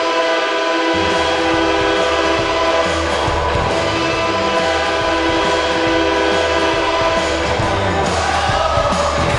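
Ice hockey goal horn sounding one long, steady chord. About a second in, the goal song's music with a beat and bass comes in underneath. The horn fades about eight seconds in as the song takes over.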